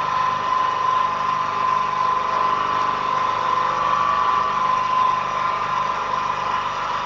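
Milling machine spindle running with a 1/8-inch two-flute end mill cutting into a metal part at full depth: a steady whine with the hiss of the cut.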